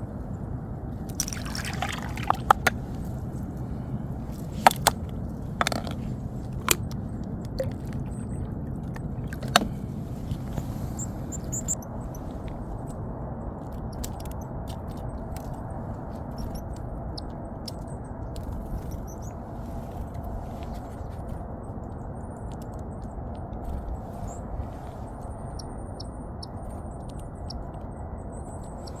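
Outdoor ambience with a steady low rush, broken by a series of sharp clicks and taps in the first twelve seconds; faint, short, high bird chirps come in later.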